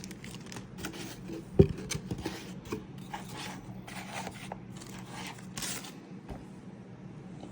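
Unboxing noises: packaging and parts being handled, with a run of short rustles and scrapes and one sharp knock about one and a half seconds in.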